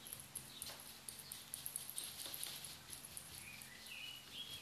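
Faint small ticks and rubbing from fingers pressing paste into a silicone mould, over the low steady hum of a distant lawn mower. A few short high bird chirps come near the end.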